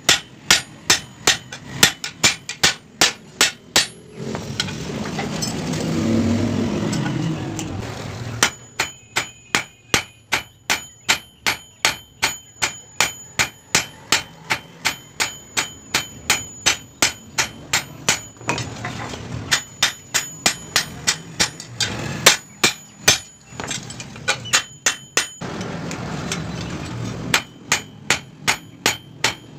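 Blacksmith's hammer striking steel on an anvil, forging a toka chopper blade: runs of evenly spaced blows, about two to three a second, each with a clear metallic ring. The hammering stops briefly a few times, about four seconds in and again near the middle, then starts again.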